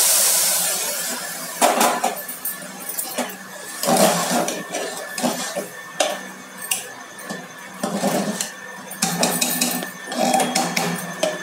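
Hot water pouring into an aluminium pressure cooker, ending about a second in. Then a spatula stirs the wet rice mixture, knocking and scraping against the pot's sides with irregular clinks about every half second.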